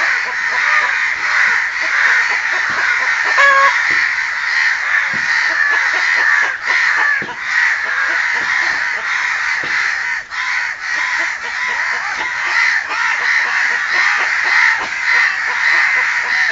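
Many crows cawing at once, a steady, dense din of overlapping caws with no pauses: crows mobbing and fighting a hen.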